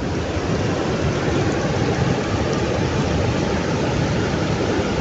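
Steady rush of water from a waterfall running close by.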